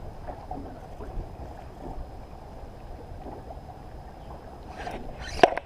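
Steady low wind rumble on the microphone, with a sharp knock near the end.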